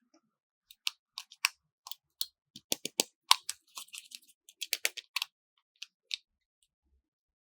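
Irregular run of small, sharp clicks and taps, as of hard plastic toy pieces being handled and snapped together, busiest in the middle and stopping about six seconds in.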